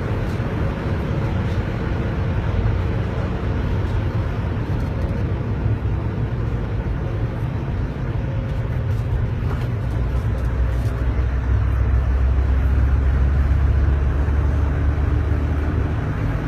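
Car driving: a steady engine and road-noise rumble, growing heavier and deeper from about ten seconds in until near the end.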